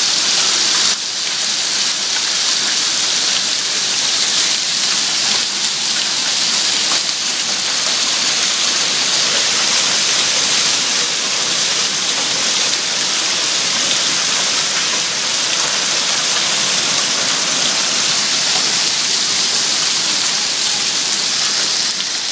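Heavy rain pouring down in a steady, dense hiss, easing slightly about a second in.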